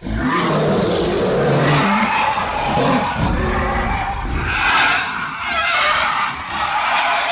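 Drawn-out rasping creature roar and screech sound effect for a griffon, a lion-eagle beast. It runs continuously for several seconds, lower and growling at first, then shriller.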